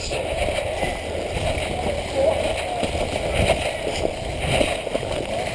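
Faint, distant voices over a steady outdoor rumble and hiss, with no nearby speech or clear gunfire.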